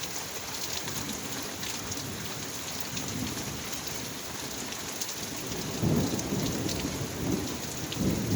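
Rain falling steadily in a thunderstorm, with a low rumble of thunder rising a little past halfway and swelling again near the end.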